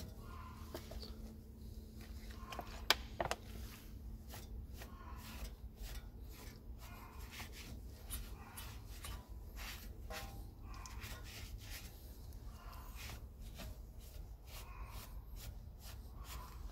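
Cloth rag wiping the metal wheel-hub mounting face with gasoline: a run of short, uneven rubbing strokes, with one sharp click about three seconds in.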